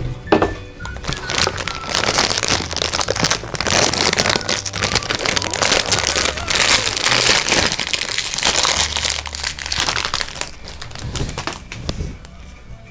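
Background music with the crinkling and rustling of packaging being handled and opened, busiest from about two seconds in until near the end.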